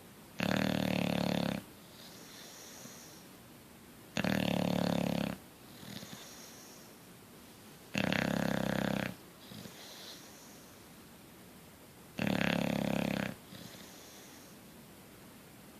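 A sleeping bulldog snoring: four loud, rasping in-breath snores about four seconds apart, each lasting about a second, with a faint hissing out-breath between them.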